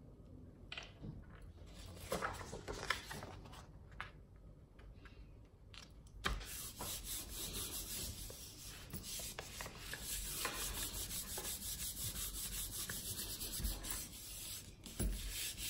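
A few soft handling rustles and taps as a sheet of paper goes onto a gel printing plate. From about six seconds in, both palms rub steadily over the paper, burnishing it against the painted plate to take the print.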